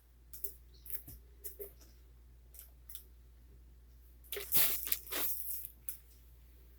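Small handling noises: a few faint clicks and taps, then two or three short swishing, squishy noises about four and a half to five seconds in.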